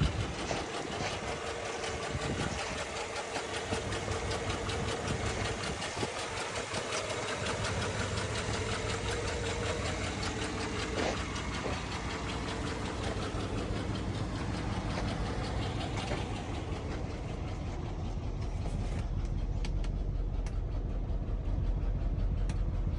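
2007 Chevy Avalanche's V8 engine idling steadily, turning deeper and a little louder near the end.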